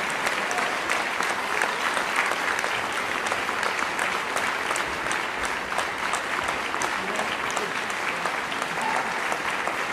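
Concert audience applauding steadily: many hands clapping at once.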